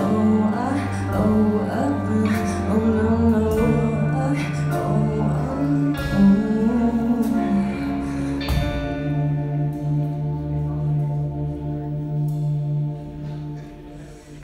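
Live band with drums, bass, guitars, horns and piano playing under a sung melody. About eight and a half seconds in, the band settles onto a long held chord that fades near the end.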